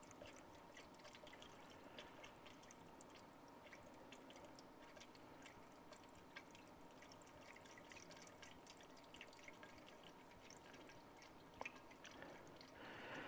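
Antifreeze poured from a plastic gallon jug into the filler neck of a new aluminum radiator: a faint, steady trickle with small dripping ticks.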